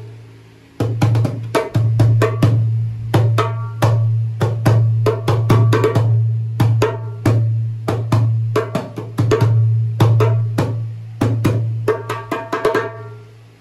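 Djembe hand drum struck by hand over and over in a quick, uneven rhythm of sharp slaps and tones, about three strikes a second, over a steady low drone.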